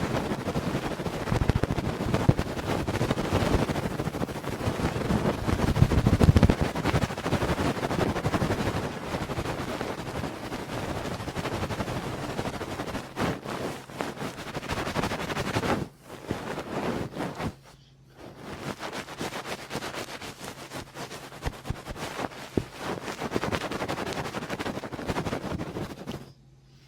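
Close-miked ASMR ear sounds: dense, rapid crackling and rubbing right on the microphone. It breaks off briefly twice a little past halfway.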